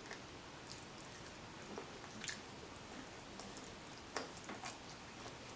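Faint eating sounds: a few short, quiet clicks and smacks of someone chewing and eating, scattered through, the clearest about two and four seconds in.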